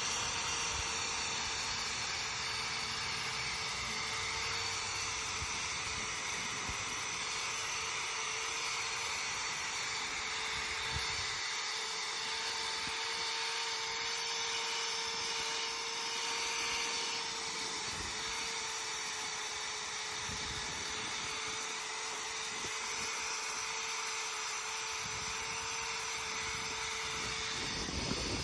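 Electric drill with a wire brush attachment running steadily at one speed, the brush scratching loose, oxidized paint off a cast-iron garden bench. The drill stops near the end.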